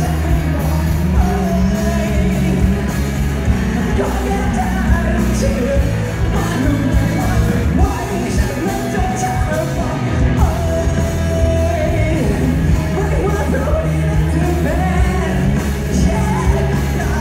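Live rock band playing through the PA of a large hall, with a male singer, a heavy bass line and drums.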